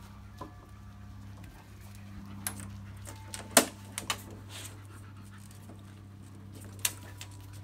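Puppies and an adult dog scrambling and playing on a raised mesh dog cot: a few sharp knocks and taps, the loudest about three and a half seconds in, over a steady low hum.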